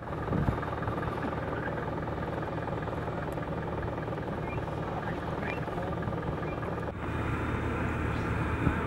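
Fire engine running steadily, a low, even drone, with faint voices over it; a little louder from about seven seconds in.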